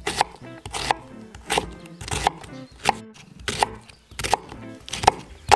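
Kitchen knife slicing an onion on a wooden cutting board: the blade knocks on the board in an even rhythm, about nine strokes, one roughly every two-thirds of a second.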